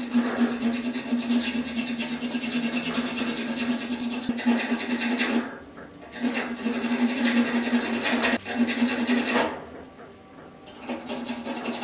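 Flat steel hand file rasping across the steel head of an old axe in a continuous run of strokes, stopping briefly about halfway through and again for a longer moment near the end.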